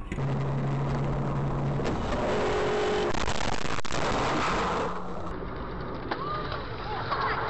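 Car driving noise picked up by a dashcam: a steady rush of road and engine noise, with a brief low steady tone in the first two seconds. The sound changes abruptly about five seconds in where a different clip begins.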